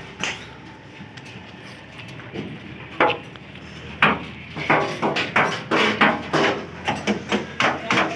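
Repeated sharp knocks, single ones at about three and four seconds in, then a quick run of about two to three a second, some with a short ring.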